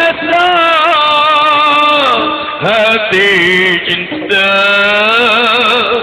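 A slow Malay love song sung in long, ornamented held notes with a wavering pitch, in three phrases with short breaths between, over musical accompaniment.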